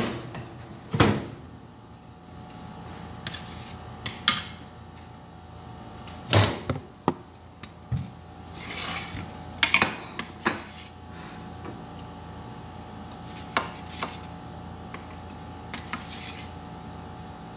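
Scattered knocks, clatters and short scrapes of a wooden spatula against metal baking trays and a ceramic plate as baked mini pizzas are lifted off the tray.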